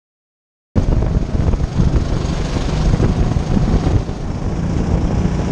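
Hire go-kart engine running at speed, heard on board with wind on the microphone. It cuts in suddenly about three-quarters of a second in, after a moment of dead silence, then holds steady.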